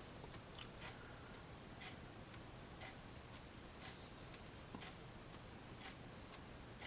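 Near silence with faint, scattered small clicks and ticks, about a dozen spread irregularly: handling noise as a pocket knife is turned over in the hand.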